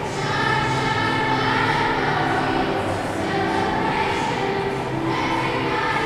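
Children's choir singing a song in held, sustained notes.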